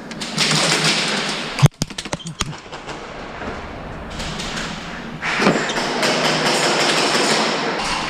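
Airsoft gunfire: one sharp crack about a second and a half in, then a quick string of clicks lasting under a second, over a steady rustling noise that grows louder about five seconds in.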